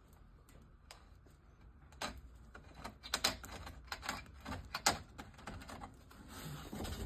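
Red hand deburring tool being twisted on the cut end of a 5/8-inch copper tube, scraping the burr off in a run of irregular clicks and rasps that starts about two seconds in.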